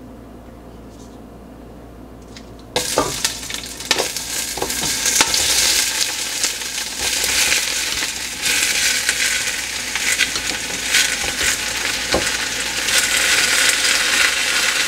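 Raw whole shrimp dropping into hot oil in a stainless steel pot: a sudden loud sizzle starts about three seconds in and keeps going. A few knocks sound as they are scraped in.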